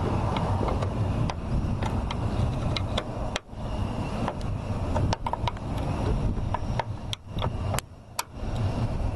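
Wrench clicking irregularly as it turns a door hinge bolt to loosen it, over a steady low rumble.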